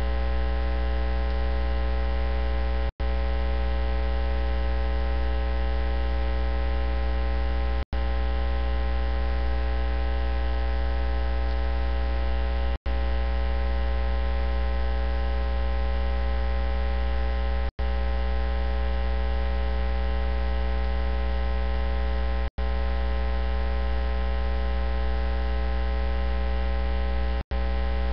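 Loud, steady electrical mains hum with many overtones, broken by a brief dropout to silence about every five seconds. No voice comes through the hum, so it has taken the place of the sermon audio on the recording.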